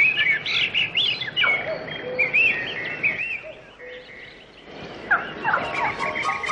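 Birds calling, a busy run of short repeated chirps and calls, with music starting to come in near the end.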